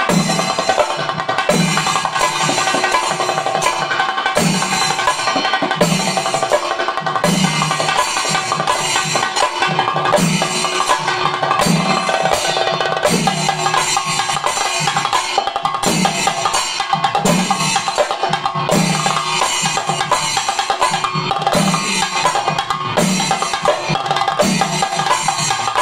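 Double thayambaka: two lead chenda drums beaten rapidly with sticks over deep valanthala bass-chenda strokes about every one and a half seconds, with ilathalam hand cymbals ringing steadily.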